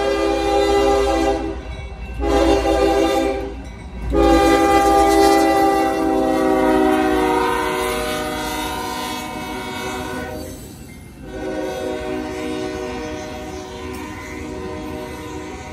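Union Pacific locomotive's first-generation Nathan K5HL five-chime air horn blowing for a grade crossing: a blast, a shorter one, a long one that drops in pitch as the locomotive goes by, and a last one, each separated by a brief break. Under the last blast the train's freight cars roll past.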